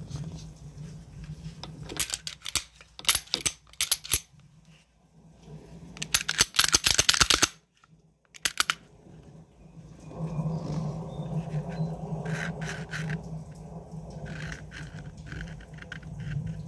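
Sharp metallic clicks and rattles of a Sig Sauer P365 pistol being handled, its slide worked by hand, coming in short groups. A dense run of clicks lasting about a second and a half midway is the loudest part. Later a steady low hum sits under scattered clicks.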